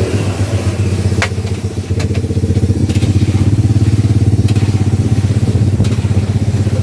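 A motorcycle engine idling with a steady, fast low pulse. Over it come a few sharp clicks as a metal spider skimmer scrapes and knocks against the steel wok while it turns frying batagor.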